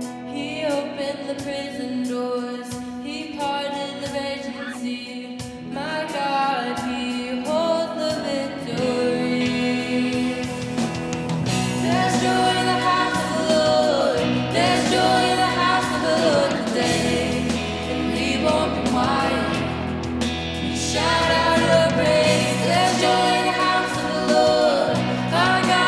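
Live Christian worship song: singers leading a melody over instrumental accompaniment, growing louder about a third of the way through.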